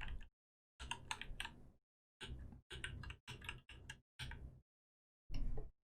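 Computer keyboard keys being pressed in short irregular clusters of clicks, about eight groups with gaps between, as keyboard shortcuts are used while editing animation keys.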